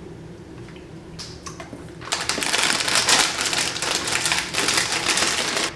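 Crackling and crunching from about two seconds in, continuing until just before the end: a crunchy spiced biscuit being bitten and chewed while its crinkly plastic wrapper is handled.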